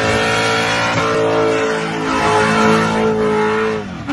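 A 5.7-litre LS1 V8 in a VN Commodore held at high revs while its rear tyres spin and squeal in a smoky burnout-donut. The revs step a little up and down, then fall away near the end.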